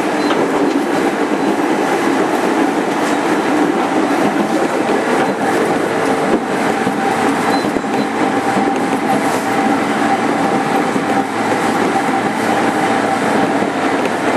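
JR 205 series 5000 subseries commuter train heard from inside motor car MoHa 205-5022 while running: steady rolling wheel-and-rail noise with a constant motor hum and occasional rail-joint clicks.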